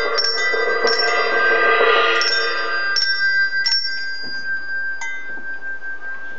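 Gamelan-style music played by children on tuned metal percussion: a run of struck, ringing notes that thins out after about three and a half seconds, leaving one high note ringing on.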